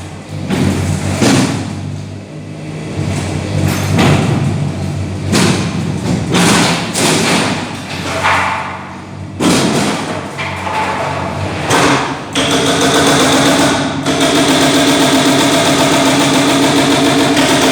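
Heavy thuds and knocks of demolition work, irregular, about one every second or two. About twelve seconds in, an engine starts running steadily and keeps going.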